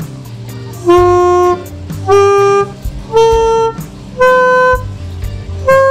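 Yamaha Venova, a plastic single-reed wind instrument, playing five separate held notes that climb one scale step at a time through the fingered F, G, A, B and high C, each about half a second long with short gaps between.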